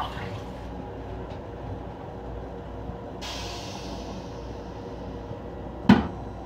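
Toilet lid in a Metro-North M7 railcar restroom banging shut onto the seat with one sharp clack near the end, over the steady low rumble of the train. About three seconds in, a hiss starts abruptly and fades away.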